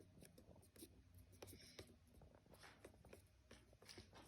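Faint scraping and light clicks of a stick stirring glue and glitter in a small pot.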